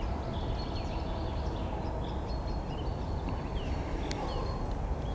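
Outdoor ambience: a steady low rumble with short, high bird chirps scattered throughout, and one sharp click about four seconds in.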